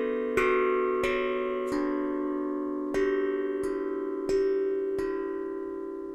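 Harmonic Star 11-note steel tongue drum played with the bare hand instead of mallets: about seven single notes struck one after another, roughly one every half second to second, each ringing on and overlapping the next.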